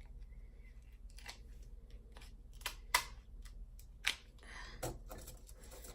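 Kitchen scissors snipping and cracking through boiled shellfish shells: a series of short, sharp, irregular snips and cracks, several in a row with uneven gaps.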